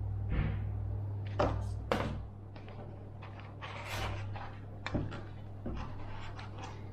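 Paper booklets and packaging being handled: several light knocks and rustles over a steady low hum.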